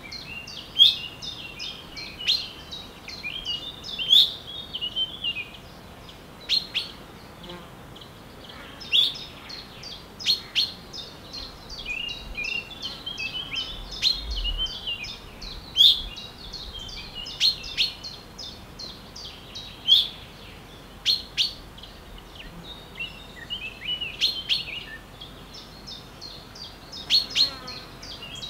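Songbirds in woodland chirping and calling, several at once: many short high notes and trills, some sweeping sharply down in pitch, coming thick and fast.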